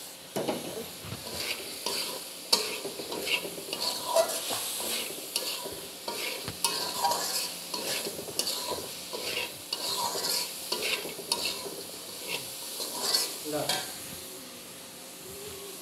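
A metal spatula stirring and scraping fried vegetables and egg around a large metal karahi, in irregular strokes with clinks against the pan, over a steady sizzle of frying oil.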